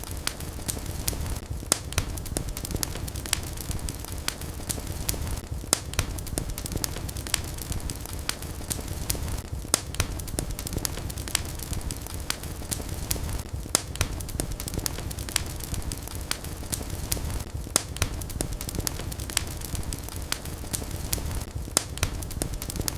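Wood fire burning in a fireplace, with irregular crackles and sharp pops over a steady low rumble of flame.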